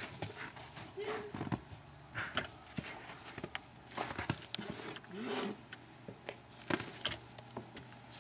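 Footsteps crunching in snow with scattered clicks, and a small dog's two short whines, about a second in and again around five seconds in.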